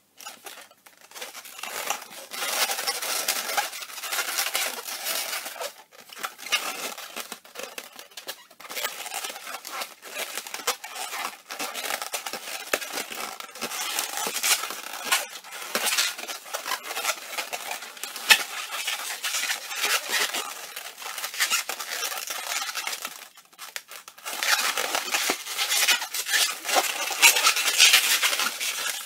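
260Q latex modelling balloons squeaking and rubbing against each other as they are twisted and bent into shape: a dense run of short, scratchy squeaks that grows louder near the end.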